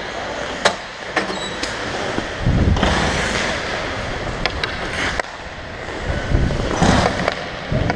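Ice-hockey skate blades scraping and carving across rink ice, with several sharp clicks of sticks and puck. Heard from a helmet-mounted camera, with a low wind rumble on the microphone from about two and a half seconds in as the skater moves.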